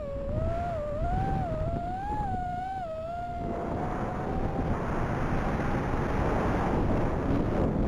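iFlight XL5 FPV quadcopter's brushless motors whining, the pitch wavering up and down with the throttle for about three and a half seconds. The whine then fades to a faint steady tone under a broad rushing noise.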